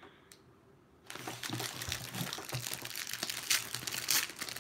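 Clear plastic packaging crinkling and crackling as it is handled, starting about a second in.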